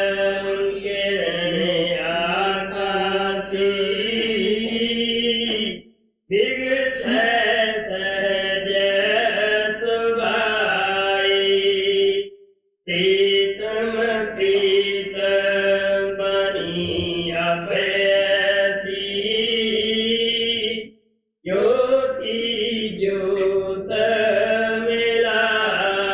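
A single voice chanting a devotional hymn verse, unaccompanied, in four long held phrases with brief pauses for breath between them.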